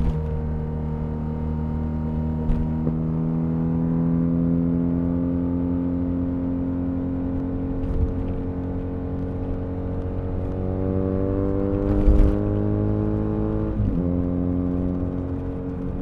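2023 BMW R1250RS boxer-twin engine running under way, heard from a recorder in the rear seat bag. The pitch climbs slowly as the bike accelerates, then drops sharply about fourteen seconds in at an upshift. There is a short bump about twelve seconds in.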